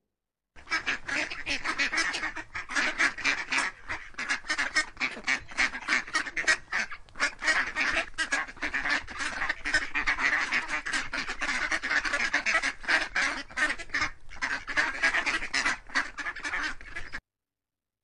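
Ducks quacking in a rapid, unbroken run of calls that starts about half a second in and stops shortly before the end.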